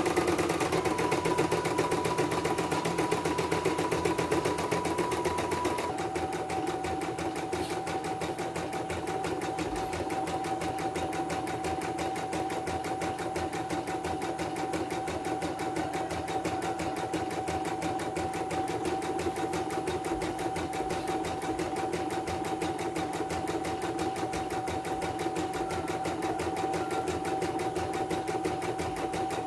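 CNY portable embroidery machine running a test stitch-out after servicing: a fast, even needle clatter over a steady motor whine. The whine drops in pitch and the machine gets slightly quieter about six seconds in, then it runs on evenly.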